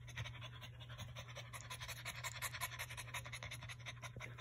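French bulldog panting fast and rhythmically, which the owner takes for the first stage of labour rather than a false alarm.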